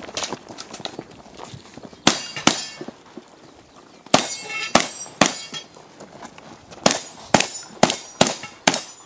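Shotgun fired ten times in three quick strings of two, three and five shots, with a metallic ringing after several of them. There are lighter clicks and knocks near the start.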